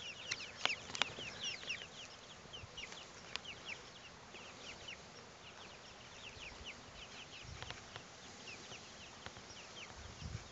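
A flock of young chickens, pullets not yet laying, cheeping steadily in a stream of short, high calls, several each second. A couple of faint sharp clicks come about a second in.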